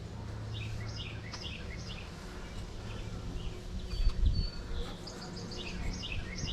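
Birds chirping in short, quickly repeated calls over a steady low hum, with a low thump about four seconds in.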